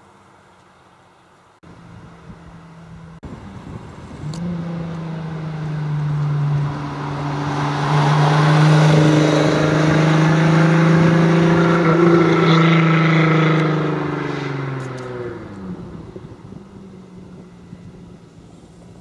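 Lamborghini Countach's V12 engine approaching and driving past at speed. It builds to a loud pass-by, then drops in pitch and fades as the car pulls away.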